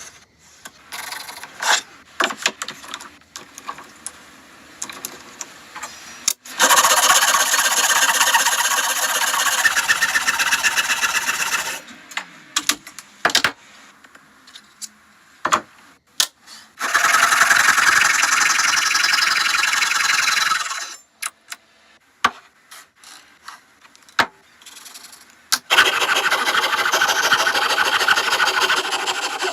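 Electric jigsaw cutting wood three times, each cut lasting several seconds with a fast buzzing rattle of the reciprocating blade. In the pauses between cuts there are scattered knocks and clicks of wood and the jig being handled.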